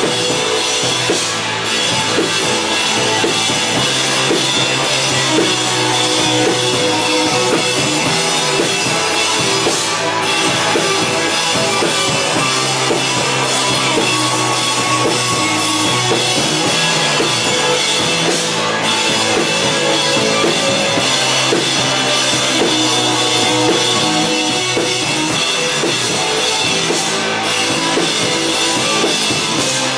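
Rock band playing live: drum kit, electric guitars and bass guitar, loud and without a break.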